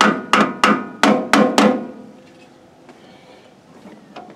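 A hammer striking the starter motor of a Kubota L2350 tractor: about six quick ringing metal blows in the first two seconds, then quiet. The starter is being tapped to free a sticking starter on a tractor that won't crank.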